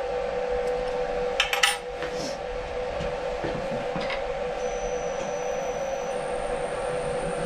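Milling machine running with a steady hum. About a second and a half in comes a quick cluster of metal clinks from the hex key and boring head being handled, and a single click follows near four seconds. From about halfway a faint high whine comes in and steps up in pitch, as the spindle with its boring head starts turning.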